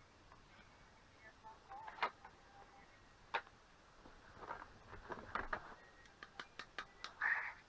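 Scattered clicks and light clatter of a DVD writer's casing and parts being handled and worked apart: single ticks at first, then a quick cluster and a run of several clicks, with a short scraping rasp near the end.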